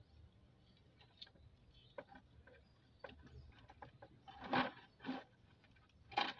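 Scattered knocks and rubbing from a bamboo pole and hands working in a plastic bucket, loudest about four and a half seconds in and again just after six seconds.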